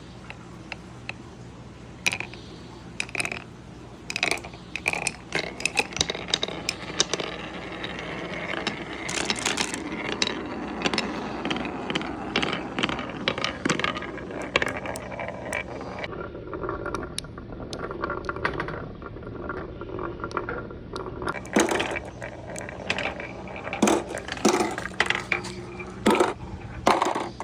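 Marbles rolling along a wooden wave marble run: a steady rolling rumble broken by many sharp clicks and clacks as the marbles strike the wooden track pieces and each other.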